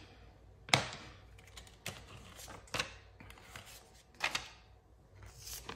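Paper bills and cash envelopes being handled: several sharp rustles and taps spread a second or so apart, the loudest a little under a second in.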